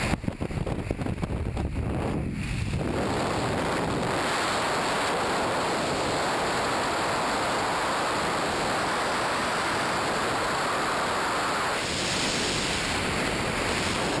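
Strong rushing air blasting over a skydiving camera's microphone, gusting and buffeting for the first few seconds, then a steady, even rush.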